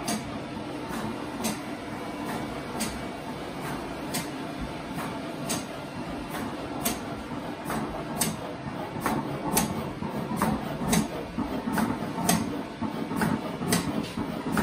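An HP Latex cutter and an HP Latex 315 printer running together. A steady mechanical hum carries a sharp click about every second and a half, and from about nine seconds in it grows louder and busier as the cutter works through a laminated sign sheet.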